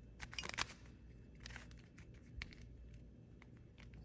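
Plastic Fisher's Cube speed cube being turned by hand to test it: a quick run of clicks in the first second, then a few scattered single clicks, over a faint low hum.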